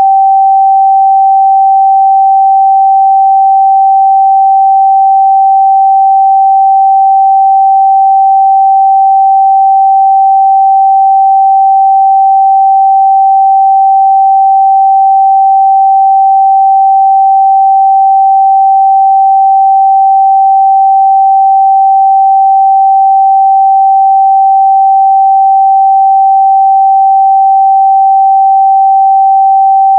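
Steady, loud 777 Hz sine-wave test tone, a single pure pitch held unchanged.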